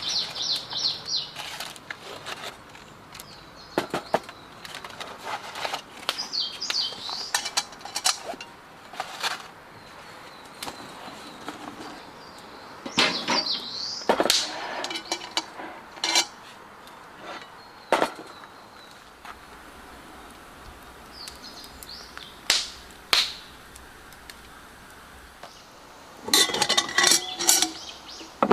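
Wild birds singing in short warbling phrases, with scattered sharp clicks and knocks of gear being handled and a burst of clattering near the end.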